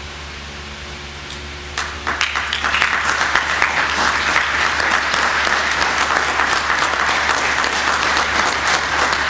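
Audience applauding: scattered first claps about two seconds in, quickly swelling into steady applause.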